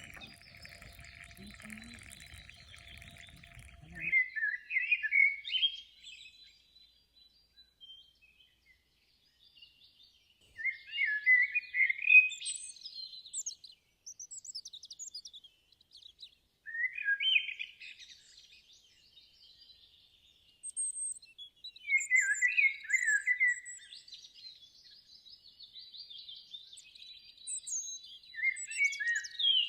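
Songbirds singing in a forest: a bird repeats a short, quick song phrase every five or six seconds, with thinner high chirps from other birds between. A low rumble runs under the first four seconds and then stops suddenly.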